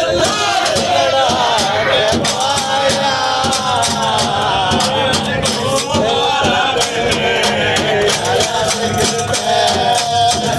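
A Haryanvi ragni sung by men without instruments, with hand-clapping keeping a steady beat.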